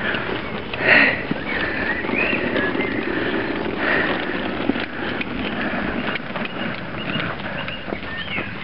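A mountainboard's wheels rolling and rumbling over a path as two harnessed huskies tow it, with a steady patter of quick footfalls.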